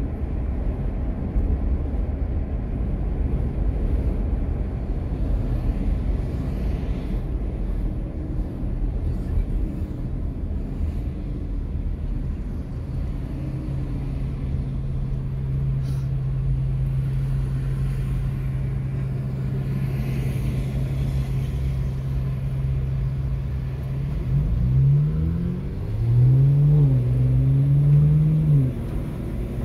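A car heard from inside the cabin. First comes steady road and tyre rumble while driving, then a steady engine hum while it waits in stopped traffic. Near the end the engine's pitch rises and falls twice as the car accelerates away.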